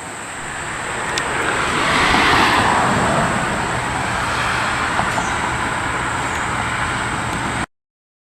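Road vehicle noise: a passing vehicle swells to a peak a couple of seconds in and eases off, over a steady low hum. The sound cuts off suddenly near the end.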